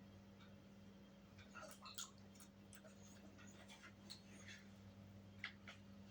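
Near silence with a few faint, scattered small clicks and smacks of a dog eating, over a low steady electrical hum.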